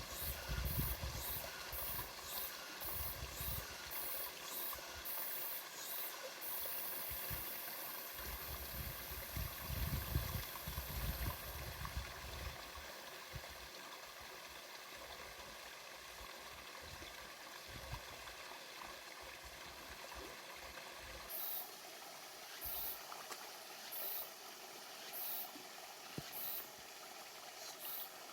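Outdoor nature ambience: wind rumbling on the microphone through the first half, with a high-pitched chirping repeating about twice a second. A steady high hiss joins for a few seconds, and later the chirps come about once a second over a quieter background.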